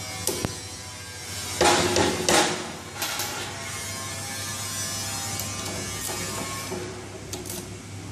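Metal clunks and clicks of a steel double pedal lock, its bar pushed into the lock housing and latching. The loudest clatter comes about one and a half to two and a half seconds in, with lighter clicks later, over a steady low hum.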